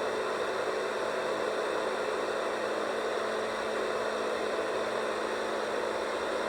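Big Red Rooster BRRC122 white noise machine playing its 'small fan' sound: a steady fan-like rushing noise with a faint hum in it.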